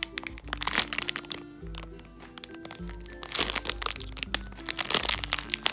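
Clear plastic bag crinkling in several short spells as a foam donut squishy is squeezed inside it, over background music.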